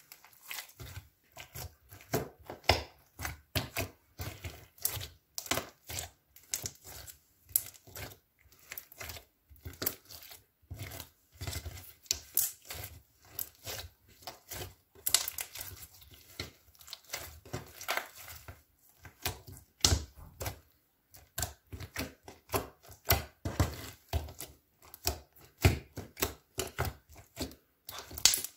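Pink fluffy slime studded with small beads, kneaded and squished by hand. It gives a run of irregular sticky crackles and pops, some louder snaps among them.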